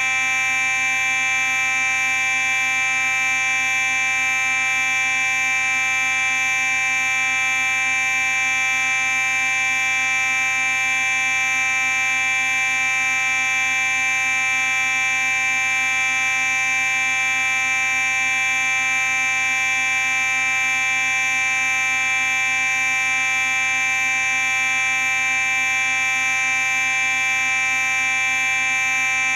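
Simplex 4903-9838 fire alarm sounding continuously: one steady, unbroken tone with many overtones, never pausing or changing.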